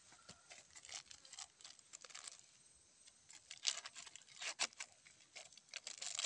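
Faint, irregular scraping and crackling of hands and utensils working the ground spice paste, with a few sharper crackles around the middle.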